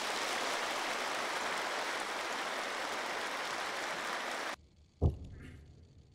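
Large audience applauding, a dense even clapping that cuts off suddenly about four and a half seconds in. Then two heavy stamped footsteps, a little over a second apart, from honour guards marching in parade step.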